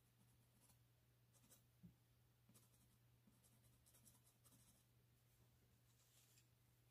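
Faint scratching of a pencil stroking across paper in short, irregular strokes, over a low steady hum.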